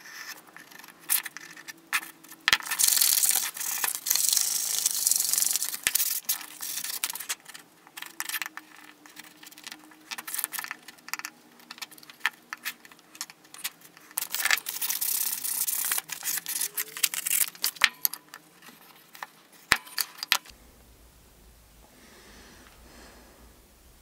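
A flat steel hand tool scraping along a small wooden plane part, in uneven strokes with scattered clicks. The scraping stops about 20 seconds in, leaving a low steady hum.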